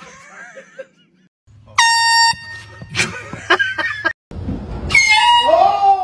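A handheld air horn gives one short, loud blast about two seconds in, followed by clattering knocks. Later a person lets out a loud cry of fright that wavers up and down in pitch.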